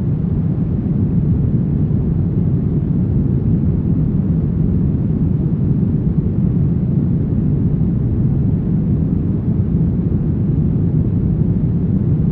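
Steady brown noise: a constant deep rumbling hiss, strongest in the low end and fading off toward the highs, with no changes or events.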